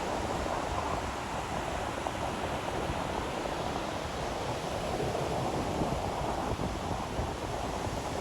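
Ocean waves washing onto a beach: a steady, even surf hiss with no distinct breaking crashes.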